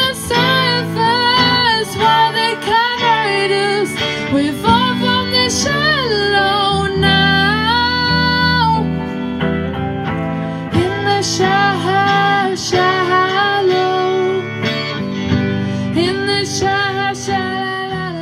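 A woman singing into a microphone with a live band, guitar accompanying her. The melody has several long held notes with vibrato.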